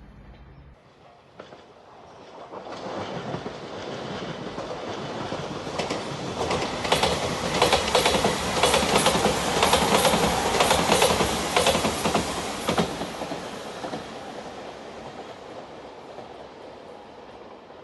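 Shiokaze limited express, a five-car electric train, passing at speed over a level crossing: a rumble that builds, a rapid clatter of wheel clicks over the rail joints for about six seconds at its closest, then fading away.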